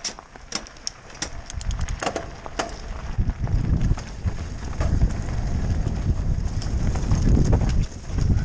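Electric mountain bike rolling off over gravel with scattered clicks and rattles. About three seconds in, as it picks up speed downhill, a steady low rumble of wind on the helmet microphone and tyres on the dirt trail takes over, with the odd knock from bumps.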